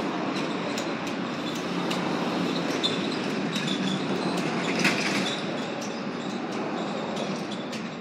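Wheels rolling over street pavement: a steady rumble with scattered light clicks, swelling to a peak near the middle and easing off toward the end.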